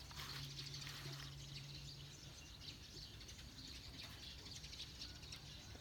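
Faint outdoor ambience with distant birds chirping. A low steady hum is heard at first and stops about two seconds in.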